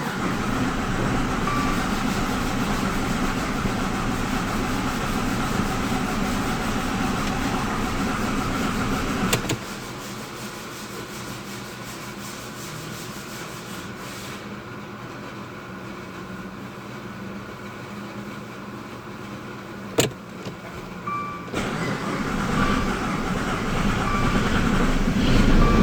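Dodge Dart's MultiAir engine running steadily. About nine seconds in there is a click and the sound drops to a quieter steady level; another sharp click comes about twenty seconds in, and the sound grows louder near the end.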